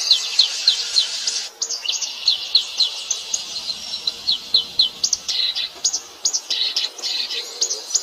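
Small birds chirping: quick series of short, high, down-slurred notes, evenly spaced in places, over a steady high insect-like buzz.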